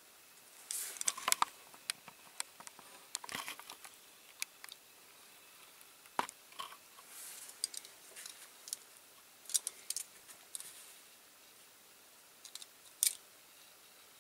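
Masking tape being picked at and peeled off a freshly painted diecast toy car: scattered small clicks, crackles and short tearing rasps.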